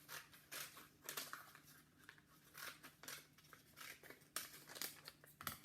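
Scissors cutting paper: a quiet string of short, uneven snips.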